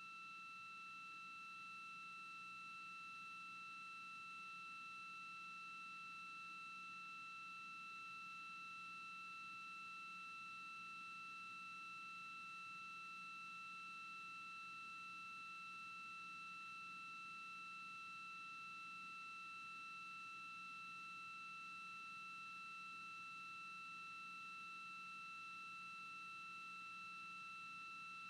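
Faint, steady high-pitched electronic tone with overtones and a low hum beneath it, unchanging throughout: an idle tone on the mission broadcast's audio feed.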